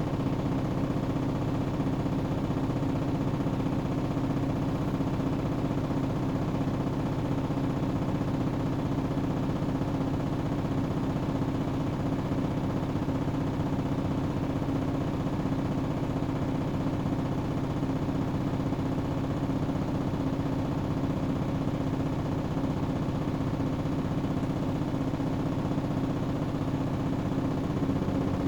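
Hoover Axi 9 kg front-loading washing machine spinning at a steady high speed, its motor and drum giving a constant, even hum with a clear steady pitch.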